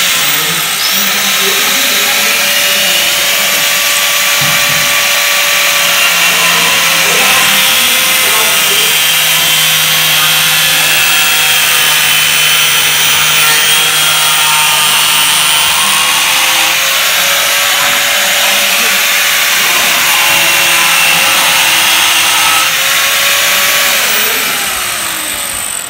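Angle grinder running at full speed, its cutting disc slicing through a PVC pipe with a loud, steady whine. The whine winds down near the end as the grinder is switched off.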